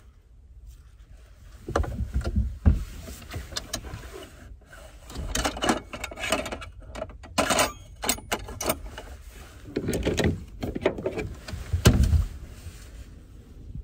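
Irregular knocks, clicks and scrapes of a knife and spoon against a wooden cutting board while avocado is cut, spread on bread and scooped.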